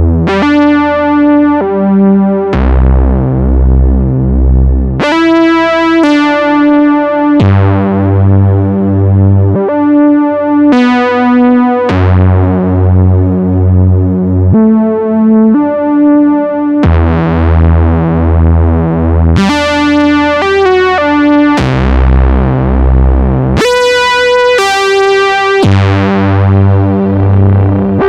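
Moog Sub 37 analog synthesizer playing a melody on its 'Classic Lead' custom patch, with added reverb. Each note opens bright and mellows as its upper overtones fade, over low notes that pulse in an even rhythm.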